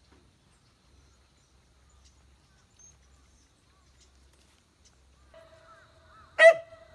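A dog barks once, loud and sharp, near the end, over a steady tone that starts about five seconds in; before that only faint scattered ticks.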